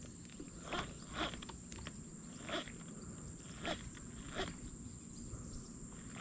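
Steady high-pitched insect drone, with about six faint short sounds scattered through it.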